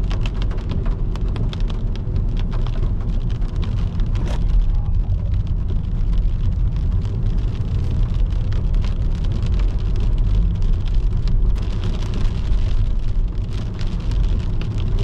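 Rain hitting the car's windscreen and body in many small sharp taps, over the steady low rumble of the car driving on a wet road, heard from inside the cabin.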